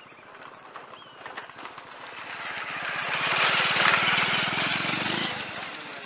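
A motor vehicle passing close by: its engine grows louder to a peak about four seconds in, with a rapid, even firing rhythm, then falls away sharply just after five seconds.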